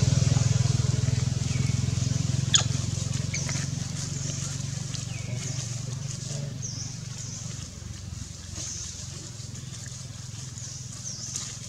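A motor vehicle's engine running steadily and fading away, with a few short high chirps and one sharp click about two and a half seconds in.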